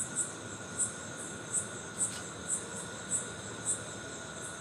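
An insect chirping: short high-pitched chirps repeating about twice a second, over a faint steady background hum. There is a faint click about two seconds in.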